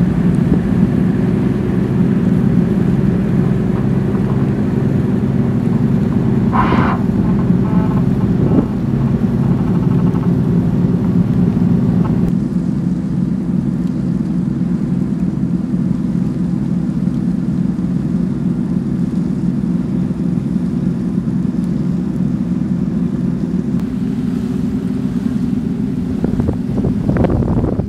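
A ferry's engine drones steadily under way, with wind on the microphone. A short higher-pitched sound stands out about seven seconds in.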